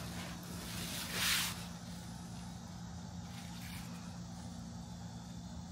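A steady low machine hum, with a brief rustling whoosh about a second in.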